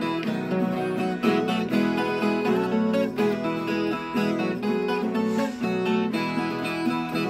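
Instrumental break in a sertanejo song: a ten-string viola caipira and a second acoustic string instrument, strummed and plucked in a steady rhythm.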